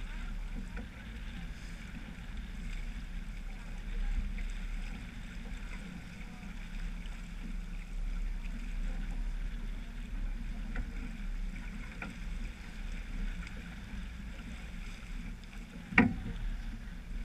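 Water rushing along the hull of a sailboat under sail, with wind on the microphone; a single sharp knock near the end.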